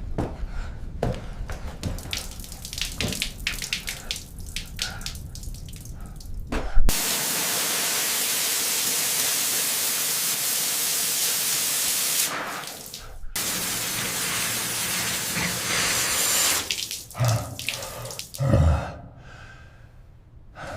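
Water hissing out of a leaking pipe under pressure, a steady spray that cuts off sharply after about five seconds and comes again for a few seconds more. Before it comes a run of knocks and clatter, and near the end a few heavy thumps.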